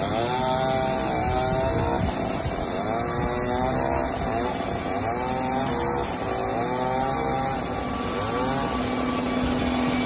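Rhino 1000 portable band sawmill running, its blade cutting along a log. A whining pitch rises and levels off again every second or two.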